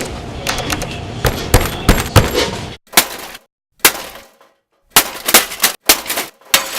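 A computer being smashed: a rapid run of sharp cracks and crashing hits, then about three seconds in, separate loud blows broken by short dead-silent gaps.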